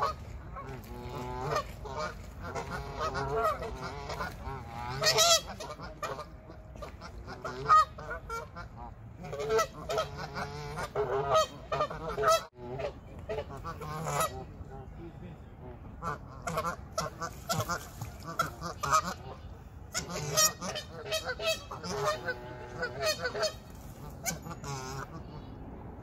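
Canada geese honking, many short calls repeated and overlapping throughout.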